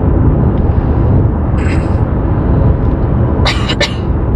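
Steady low rumble of road and engine noise inside a moving car's cabin, with a couple of brief hisses, one about one and a half seconds in and one near the end.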